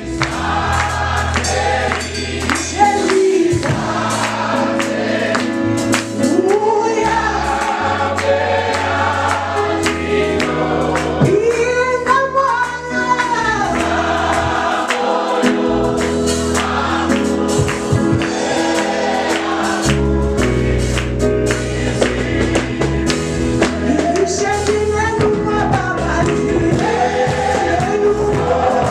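Shona gospel song sung by a praise team, a woman's lead voice with a choir answering, over electric keyboard with a sustained bass line and a steady beat.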